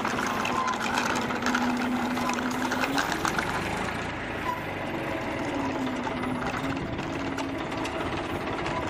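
Toy metal tractor and loaded trailer being pushed by hand over a rough cement floor: the small wheels roll and rattle continuously, under a steady low hum that rises briefly about three seconds in.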